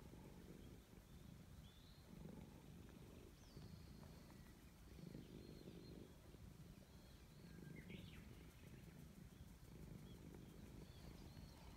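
Grey cat purring while being stroked: a soft low rumble that swells and fades with each breath, about once a second. Faint bird chirps sound in the background.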